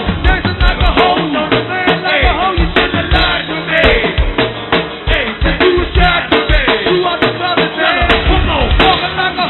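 Live go-go band music from a club PA tape, with drums and percussion keeping a steady beat under pitched lines. The sound is dull and muffled, with no treble, from a poor-quality recording.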